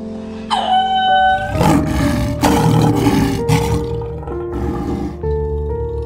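Male lion roaring in a few loud, short bursts over background music.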